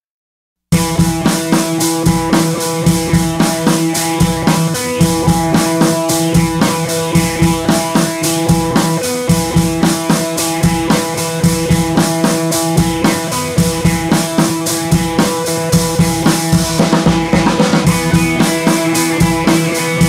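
Background music with a steady drum-kit beat, starting suddenly under a second in after silence.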